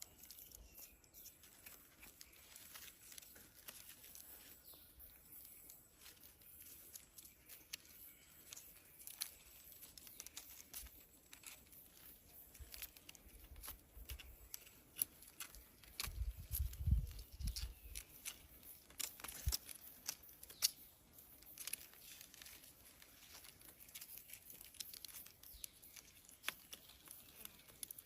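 Faint, irregular crackling and rustling clicks, with a brief low rumble a little past halfway.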